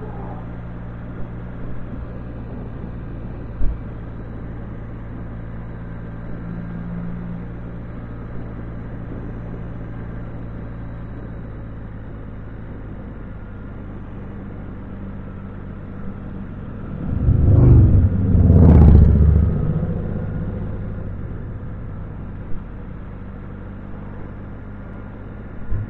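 Can-Am Spyder three-wheeled motorcycle running steadily at cruising speed, its engine hum mixed with wind and road noise. About 17 seconds in, a louder rushing swell rises and fades over about three seconds.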